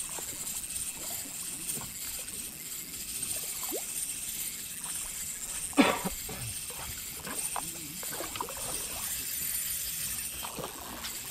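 Soft water trickling and lapping under a steady hiss, with a spinning reel being wound in as small faint clicks; one short, sharp sound stands out about six seconds in.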